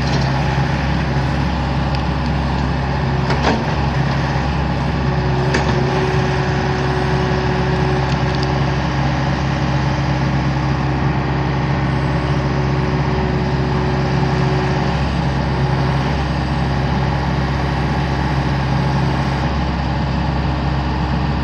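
Mini excavator's diesel engine running steadily. A higher steady tone comes in about five seconds in and drops out around fifteen seconds. Two sharp knocks sound about two seconds apart early in the stretch.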